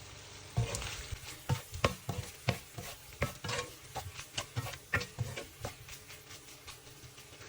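A spatula stirring and scraping spice-coated chicken pieces around a pan on low heat: a run of short clacks and scrapes, two or three a second, that stops about six seconds in.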